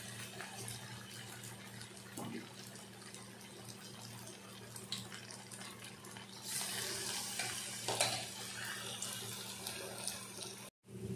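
Batter-coated cauliflower florets deep-frying in hot oil in a kadai: a steady sizzle with scattered crackles, growing louder about six and a half seconds in. The sound cuts out briefly near the end.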